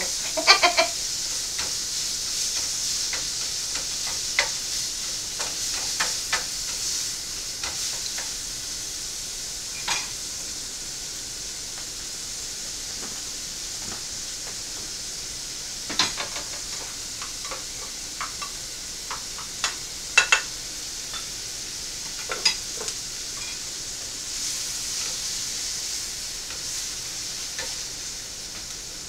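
Food sizzling in a frying pan on the stove, with a spatula stirring it and now and then clicking and scraping against the pan. The clearest clicks come about a second in and again around sixteen and twenty seconds.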